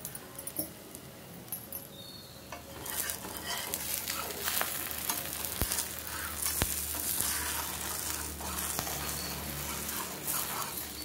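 Pesarattu batter frying in oil on a thick pan, sizzling and crackling as its underside browns. The sizzle grows louder about three seconds in, with a few sharp clicks.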